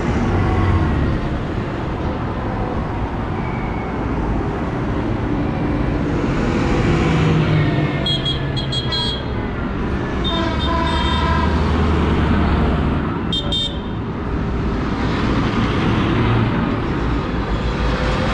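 Large modern tractors, a New Holland and a John Deere among them, driving past one after another with engines running and tyres on the road. Short horn toots sound around the middle.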